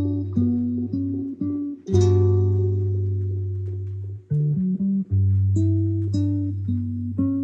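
Background music: plucked guitar notes over a sustained bass line.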